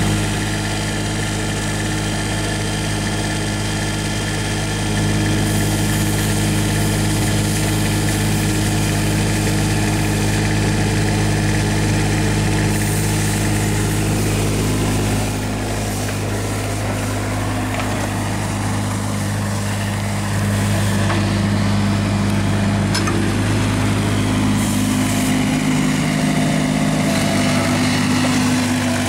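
Kubota U20 mini excavator's diesel engine running steadily.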